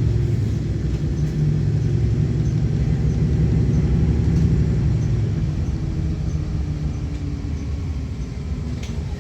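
City transit bus's engine and drivetrain rumbling, heard from inside the cabin. The low rumble eases off about halfway through, while a faint whine falls in pitch.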